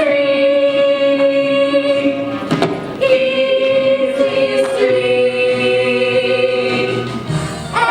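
Young voices singing a stage-musical number, holding a few long notes that change pitch every two seconds or so.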